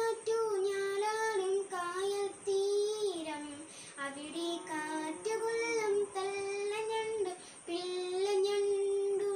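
A boy singing solo, in long held notes with short breaths between phrases.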